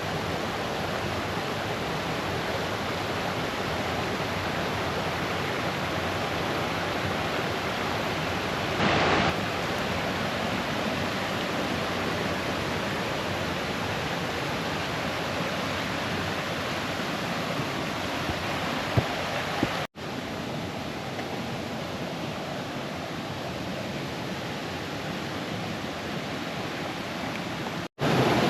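Steady rush of a brook cascading over stones. The water noise drops out for a split second twice, about two-thirds of the way through and near the end, where clips are cut together.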